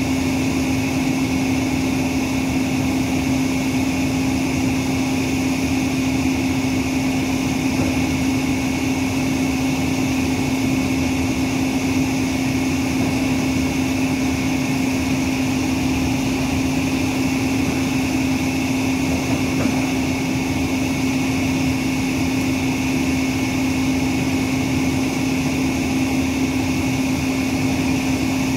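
A diesel engine running at a constant speed, giving a steady drone with a strong unchanging hum that does not rise or fall.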